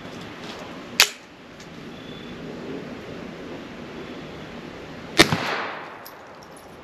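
Two shots from a suppressed Ruger .22, its suppressor in the short configuration, about four seconds apart; the second is louder and rings out briefly after the crack.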